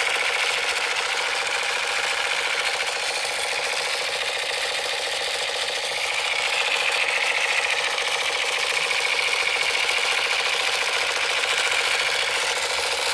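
Battery-operated toy sniper rifle's electronic sound effect playing from its small speaker: a continuous, even buzzing rattle with no low end.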